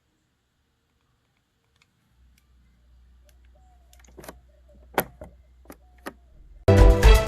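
Dead silence, then a faint low hum with four or five sharp clicks, before loud electronic music with a heavy, even beat comes in suddenly near the end.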